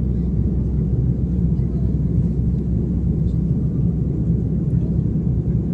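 Steady cabin noise inside an airliner on approach: a low, even rumble of the jet engines and airflow, heard through the fuselage.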